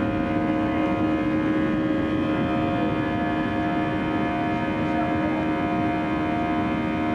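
Airbus A320-family airliner's jet engines heard inside the cabin during the climb after takeoff: a steady rushing noise with a chord of several steady whining tones over it.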